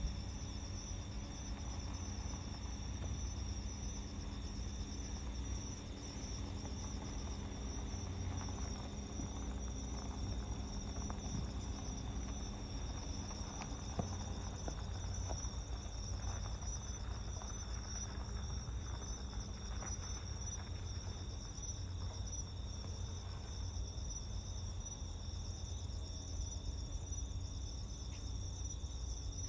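Night insects such as crickets chirring steadily in several high pitches at once, over a steady low rumble.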